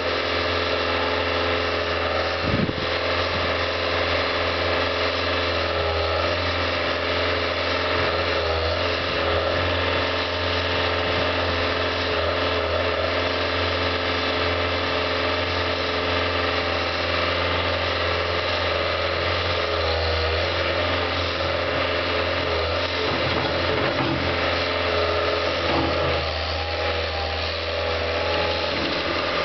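Caterpillar compact track loader's diesel engine running steadily under throttle, its pitch wavering briefly several times while the loader lifts and dumps a bucket of dirt into a dump truck and backs away.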